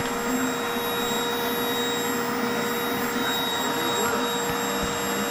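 Vacuum cleaner running steadily: an even rushing noise with a constant motor whine.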